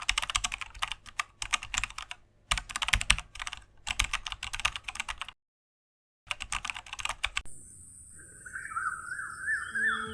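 Computer keyboard typing: quick runs of key clicks in bursts, stopping for about a second just past the middle, resuming briefly, then giving way to a faint steady high tone and a wavering, zigzagging tone near the end.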